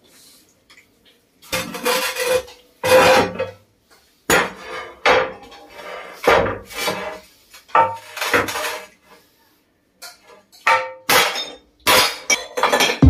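Claw hammer striking ceramic floor tiles and cracking them into irregular pieces, the broken pieces clattering: about a dozen sharp knocks at uneven intervals, each with a short ring, starting after a quiet second and a half.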